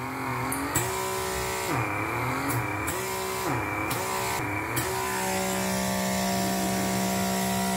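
Handheld electric pore vacuum (blackhead suction device) running with a steady motor whine. Its pitch dips and recovers several times in the first few seconds as the suction tip is pressed onto and lifted off the forehead skin, then it hums steadily.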